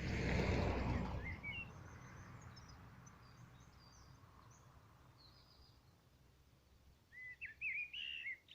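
Birdsong: scattered high chirps and short warbles, with a louder run of quick bird calls near the end. A rush of noise at the start fades away over the first few seconds.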